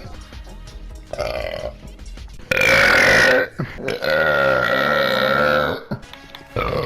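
A man burping repeatedly: a short burp about a second in, a loud burp about two and a half seconds in, then a long drawn-out burp of about two seconds on a steady low pitch.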